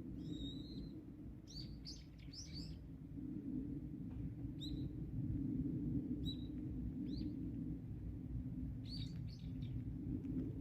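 Small birds chirping in scattered short calls, a few at a time with gaps between, over a steady low rumble.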